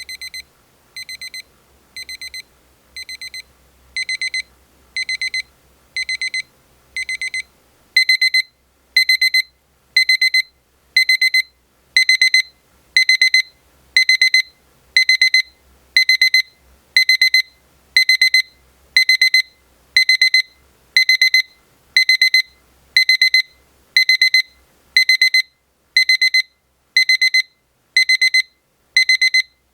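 Rhythm 8RE644SR23 alarm clock's electronic alarm: short bursts of high-pitched beeping about once a second. It gets louder in steps about four and eight seconds in, then keeps going at full volume.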